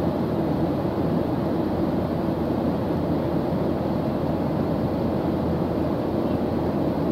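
Jet airliner cabin noise in cruise flight: a steady, low rushing drone of engines and airflow heard through the fuselage.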